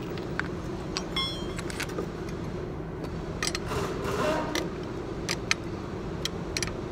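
Wrench clicking and clinking against the top nut of a new front shock absorber as the nut is tightened, the shaft held in locking pliers. There are scattered sharp metal clicks, one ringing clink about a second in and a short scraping stretch in the middle, over a steady low background hum.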